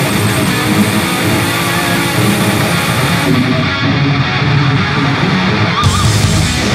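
Loud rock music with electric guitar.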